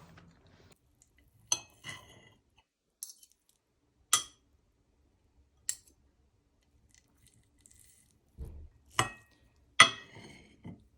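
Cutlery clinking against a dish, half a dozen separate sharp clinks with a short ring, spaced unevenly with quiet between.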